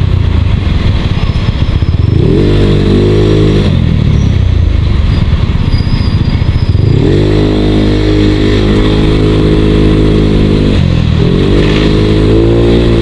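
Yamaha Mio Sporty scooter's small single-cylinder four-stroke engine on the move, its pitch rising as the throttle opens about two seconds in, dropping off, then climbing and holding again for several seconds before easing and picking up once more near the end. The engine's crankshaft side bearing is worn loose, which is why it is being taken for a crankshaft rebuild. Wind rumble on the microphone sits underneath.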